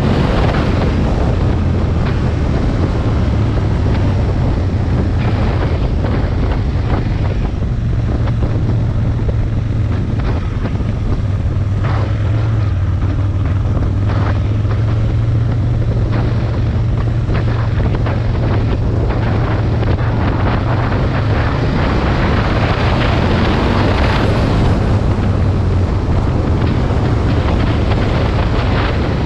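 Aprilia Tuono 1000's V-twin engine running steadily while riding, its low note rising a little about eight seconds in, under heavy wind noise on the microphone.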